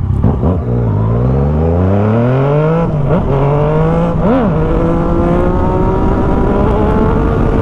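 Yamaha MT motorcycle with an aftermarket Jeskap GP2 exhaust, heard while riding. The engine pitch climbs for about two seconds under acceleration, drops at a gear change about three seconds in, and rises and falls once in a short throttle blip. It then settles into a steady run with the pitch slowly rising.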